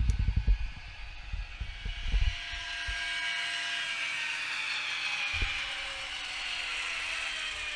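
Zimo sound decoder in a TT-scale BR 131 model diesel locomotive, playing the diesel engine sound through the model's small speaker while it runs. Low knocks and thumps come in the first three seconds, then a steady mechanical running sound with faint, slowly falling whines.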